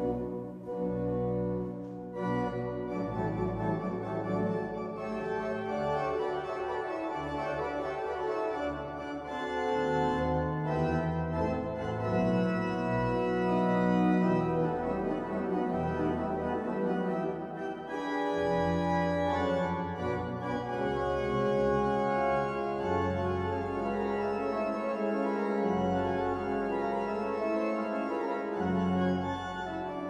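Pipe organ of the St. Maurice Abbey (71 stops, three manuals) playing a piece in full sustained chords over a moving bass line.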